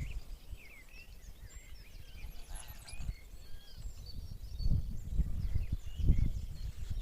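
Small birds chirping and singing over a low rumble that swells twice, about four and a half and six seconds in.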